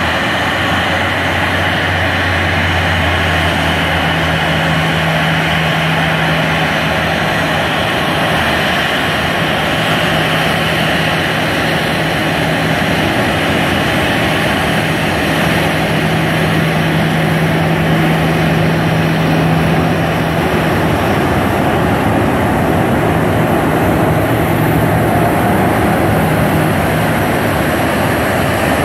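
Boeing 737-900ER's twin CFM56-7 turbofan engines running at taxi power as the airliner rolls past, a steady jet rumble and hiss. A thin high whine, dropping slightly in pitch, comes in near the end as the engines pass closest.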